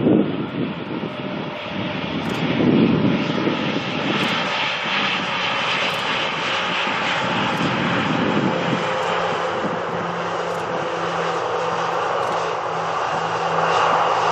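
Jet airliner on its landing approach, the engine noise building and then holding steady, with a low steady hum joining about two-thirds of the way through.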